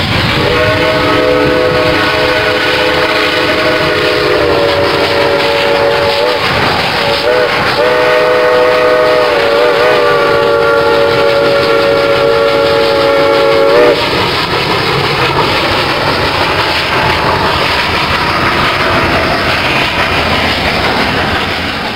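Steam locomotive's chime whistle blowing two long blasts, with a few short wavering notes between them; the second cuts off about 14 s in. The passenger train then passes with a steady rumble and clatter of cars on the rails.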